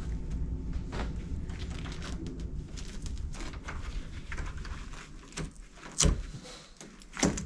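Door lock hardware being unscrewed and handled: scattered light clicks over a low rumble, then two sharp knocks about a second apart near the end.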